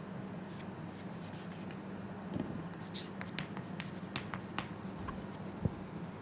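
Chalk scraping and tapping on a chalkboard as lines and letters are drawn. The short strokes and taps bunch up in the second half, with the sharpest tap about five and a half seconds in, over a steady low background hum.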